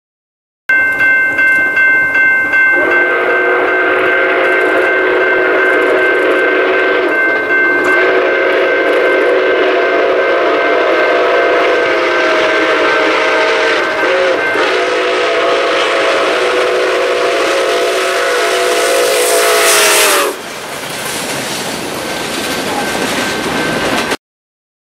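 Nickel Plate Road 765, a Lima-built 2-8-4 Berkshire steam locomotive, sounding its multi-note chime whistle in three long blasts over the noise of the running train. A beating exhaust chuff is heard at first, about three beats a second. The whistle cuts off about twenty seconds in, leaving the quieter rumble of the passing train.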